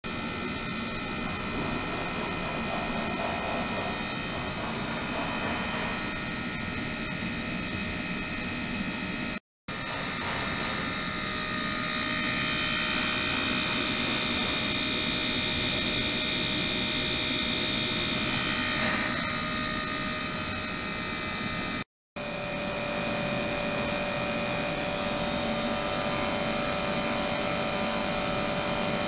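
A 72 kHz ultrasonic transducer running submerged in a plastic tub of water gives a steady hiss with several steady high tones. It grows louder and brighter for several seconds in the middle and breaks off twice for an instant.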